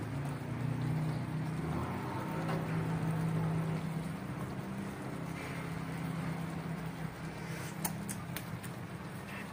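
Chicken afritada simmering and bubbling in a wok on a gas stove, under a steady low hum; a few sharp clicks come about eight seconds in.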